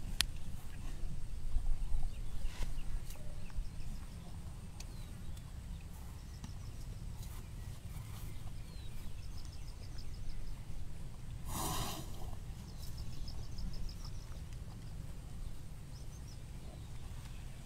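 Asian elephants feeding at a pile of fruit, with faint crunches and rustles under a steady low rumble. Faint high trills come and go, and one short, loud call sounds about twelve seconds in.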